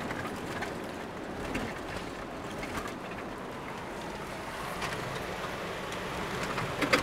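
Steady road noise inside a car's cabin while driving on a rough gravel road, with a few small clicks and rattles.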